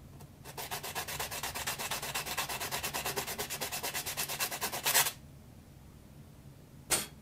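Coarse sandpaper rubbed quickly back and forth over soft pine knife scales, hand-shaping the handle. It makes a rapid run of scratchy strokes that stops suddenly after about four and a half seconds, then one short scrape near the end.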